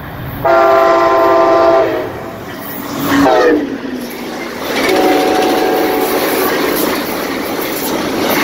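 Passing train's locomotive horn sounding a multi-note chord: a blast about half a second in, a short one that drops in pitch around three seconds in, and a longer, softer blast from about five seconds, over the steady rumble and rail clatter of the moving train.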